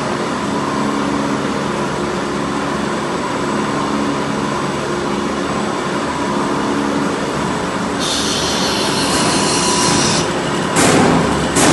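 CNC PVC pipe threading machine running with a steady motor hum. A higher hiss joins from about eight to ten seconds in, and sudden loud rushing bursts come near the end.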